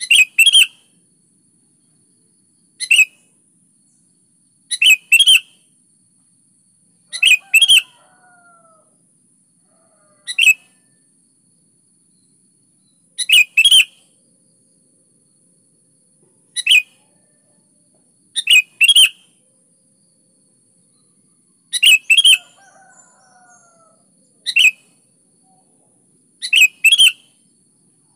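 Sooty-headed bulbul (kutilang) singing: short, loud, bright phrases, often two in quick succession, repeated about every two to three seconds, around eleven in all.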